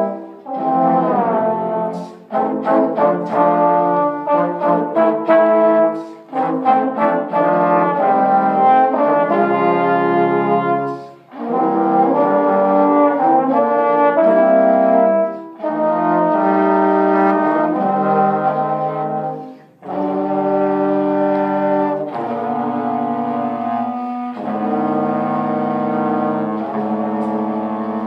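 Trombone quartet playing in harmony: quick short detached notes for about the first ten seconds, then longer held chords with brief gaps between phrases.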